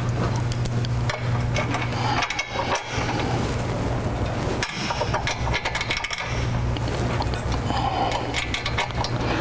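Quick metallic clicks, knocks and rattles of hand tools and bolts as the side step's bolts are fitted to its mounting brackets, over a steady low hum.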